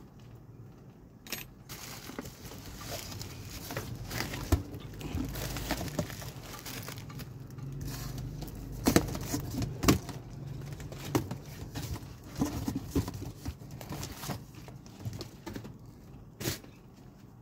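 A cardboard shipping box being opened and a bubble-wrapped appliance lifted out onto a workbench. There is rustling cardboard and crinkling plastic, with a string of knocks, the sharpest about nine and ten seconds in.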